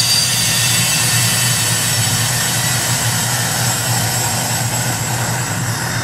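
Air hissing into an evacuated glass vacuum bell jar as the pressure is let back in: a steady rush that eases slightly near the end as the pressure evens out, over a steady low hum.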